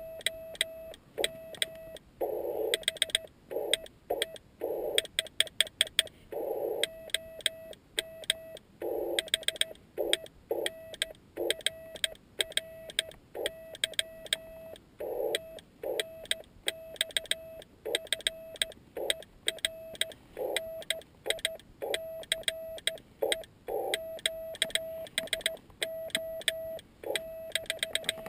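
Morse code from a Yaesu FT-817ND transceiver: a single tone of about 650 Hz keyed in short dots and long dashes at a slow sending speed, with sharp clicks from the homemade hand key's contacts. Short patches of receiver hiss come between the tone elements.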